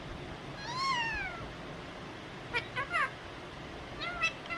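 Pet parrot calling: one drawn-out call that rises and then falls about a second in, then a few short chirps and clicks, and a short rising call near the end.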